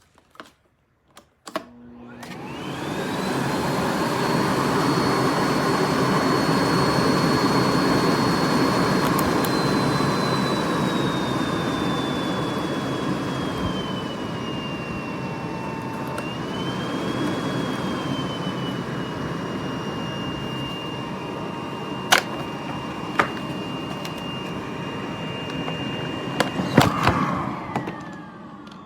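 Miele Blizzard CX1 bagless canister vacuum starting up after a few clicks, its motor rising to a steady high whine over a rush of air. The pitch slides lower after about ten seconds, then settles. The vacuum is switched off and spins down near the end, with a couple of sharp clicks a few seconds before.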